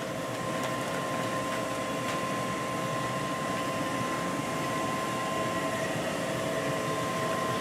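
Steady mechanical hum and hiss with a few constant pitched tones running through it.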